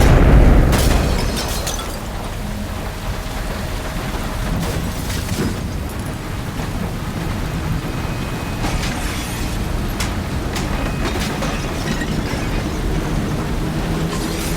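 A big explosion boom dying away over the first couple of seconds into a steady deep rumble, with a few faint crackles scattered through it.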